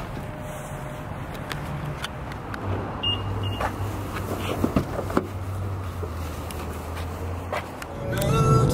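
Car, a low steady hum of the running engine with scattered clicks and knocks. Music comes in near the end.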